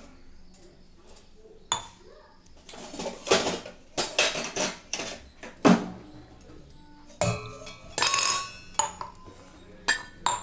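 Kitchen pots, dishes and utensils clattering as they are handled: a series of knocks, clinks and scrapes, with a sharp knock about halfway through and a busier run of clatter toward the end.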